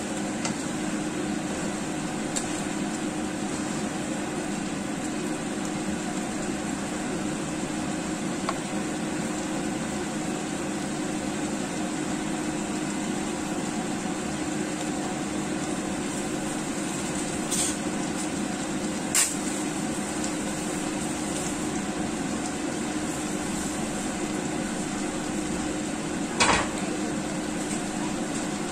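Chicken wing and potato curry simmering in a frying pan: a steady hiss with a low hum under it. A few short sharp clicks come about two-thirds of the way through and again near the end, the last the loudest.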